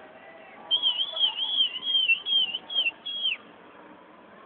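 High whistled notes: a quick run of rising-and-falling notes for about two and a half seconds, ending in a downward slide.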